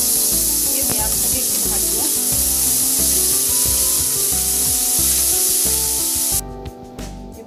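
Chopped onions sizzling in hot butter in a nonstick pan while being stirred with a silicone spatula. The sizzle cuts off suddenly about six seconds in.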